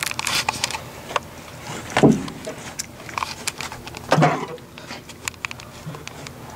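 Scattered light clicks and rattles from the Corvair's accelerator pedal and new cable linkage being worked by hand to test the install, with two short, louder thuds about two and four seconds in.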